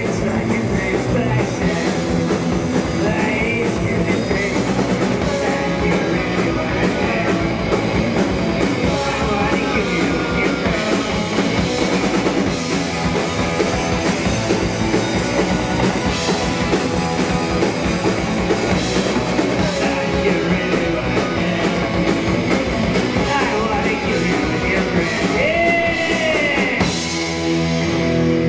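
Hardcore punk band playing live: distorted electric guitars, bass and a drum kit with a singer's vocals. The song stops abruptly near the end, leaving a few steady tones ringing on.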